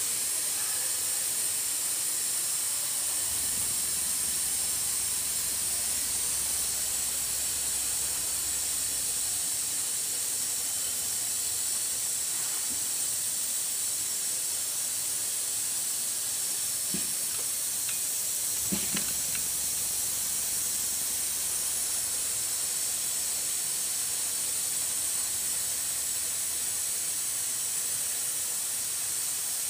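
Automatic sanding machine's belt sanding head grinding the outer wall of a spinning aluminium pot: a steady high hiss, with a few faint knocks about two-thirds of the way through.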